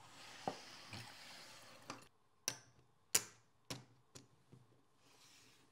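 Plastic poker chips clicking against each other and the table as a stack is pushed into the pot: about seven sharp, separate clicks over a few seconds.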